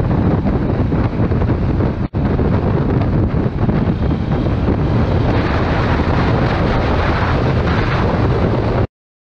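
Wind buffeting the camera microphone on a moving motorcycle, a loud, steady rumble with the bike's running underneath. It drops out for an instant about two seconds in and cuts off suddenly near the end.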